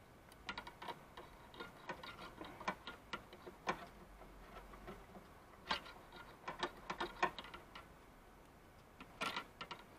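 Irregular light metallic clicks and scrapes of a bent coat-hanger wire and pliers working inside an engine's spark plug well, fishing out black gunk left around a stuck ignition coil's rubber boot.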